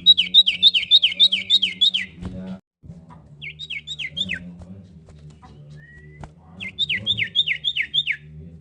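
Common iora singing: three runs of quick, sharply falling whistled notes at about four notes a second. The first run is the longest, and a single short rising whistle comes before the last run.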